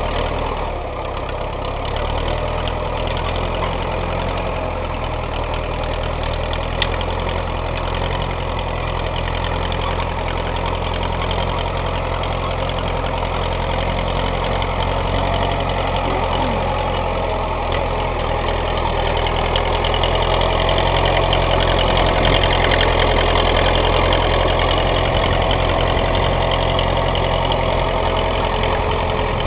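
Engine of a small vintage crawler tractor running steadily as it pulls a modified disc through loose soil to throw up raised beds, getting a little louder about two-thirds of the way through.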